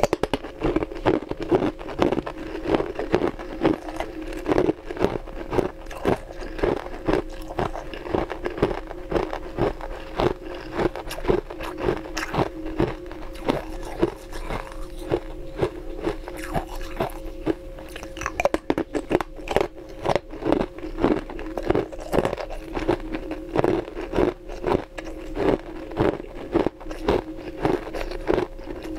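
Frozen ice rings being bitten and chewed close to the microphone: dense, irregular crunching and cracking of hard ice, many sharp cracks a second, over a steady faint hum.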